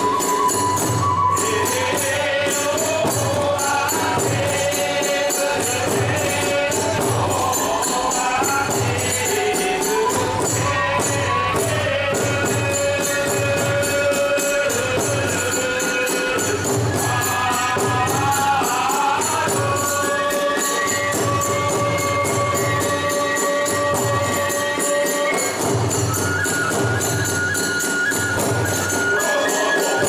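Kagura hayashi ensemble playing without pause. A drum keeps a steady, even beat, small metal hand cymbals clash along with it, and a bamboo flute carries a held, sliding melody above.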